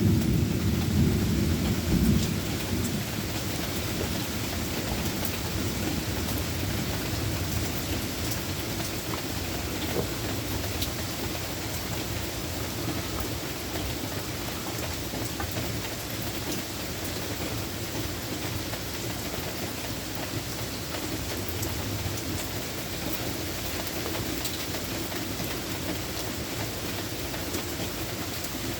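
Steady rain falling, with the low rumble of thunder dying away over the first couple of seconds.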